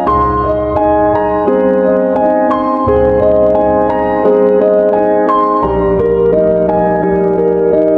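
Background piano music: a gentle melody of single notes changing about every half second over held low notes.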